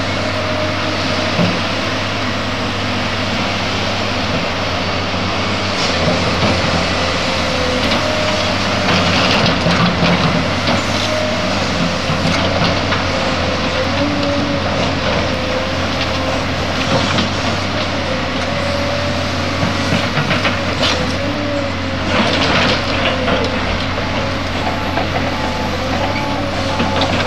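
Caterpillar 385C hydraulic excavator's diesel engine working steadily as it digs and loads dirt, with articulated dump trucks running alongside. Its engine note rises and falls a little with the work, and occasional clanks come through, several around the middle and again later on.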